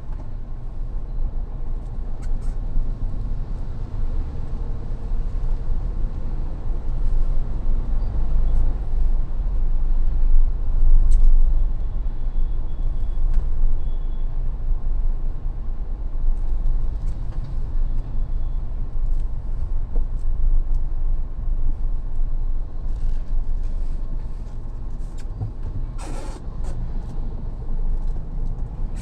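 Mahindra Thar driving, a steady low rumble of engine and road noise, with a few light clicks scattered through it.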